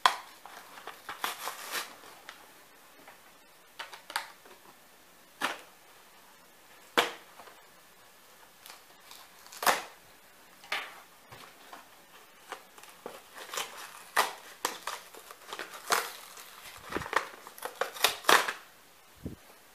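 Plastic blister packaging of a die-cast toy car pack being handled and pried open by hand: scattered crackles, crinkles and sharp plastic snaps in irregular clusters, with short pauses between.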